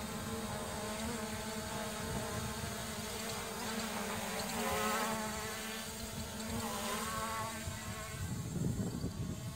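Hubsan H501S quadcopter's brushless motors and propellers buzzing in flight. The pitch rises and falls as the motors change speed, loudest about five seconds in while it hovers close. A low rumble comes in near the end.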